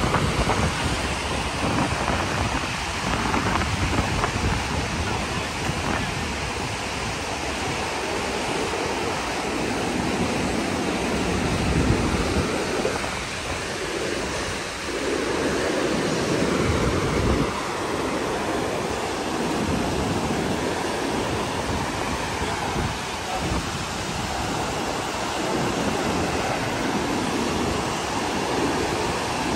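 Fast glacial mountain river rushing over boulder rapids, a steady white-water rush, with wind gusting on the microphone a few times.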